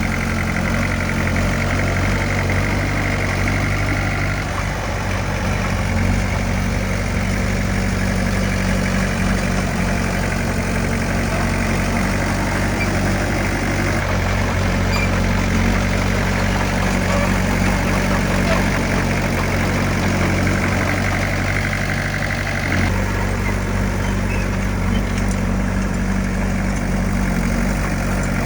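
Heavy diesel engine of earthmoving machinery running steadily, its note changing about halfway through and again near the end.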